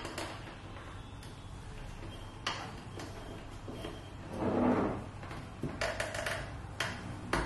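Head of a desktop inspection lamp being tilted by hand on its pivot joint: a series of sharp clicks and knocks, with a louder scraping noise about halfway through.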